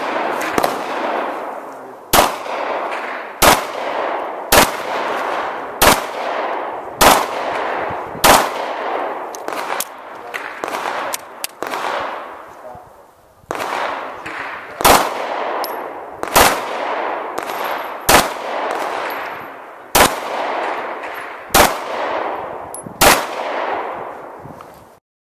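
Pistol shots fired singly at a steady, deliberate pace, about one every second and a half. Each shot is followed by a long echoing tail. There is a pause of a few seconds in the middle of the string.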